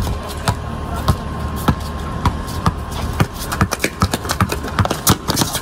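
Basketball dribbled on a concrete driveway: a run of sharp bounces about two a second, mixed with players' footsteps on the pavement.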